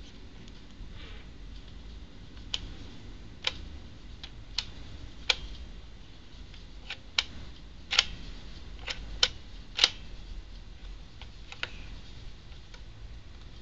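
Irregular sharp clicks and taps from a Polaroid Piranha 790 camera being handled, about a dozen spread unevenly, with the loudest ones in the middle.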